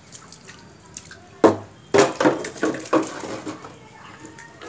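A plastic flower pot and a glass jar being knocked over and clattering on a stone floor: a sharp knock about a second and a half in, then a quick run of clattering knocks over the next second or so.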